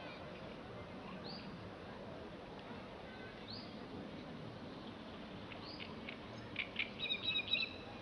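Birds calling by a lake: a short high call repeated about every two seconds, and a louder burst of rapid chattering notes near the end, over a steady faint background hiss.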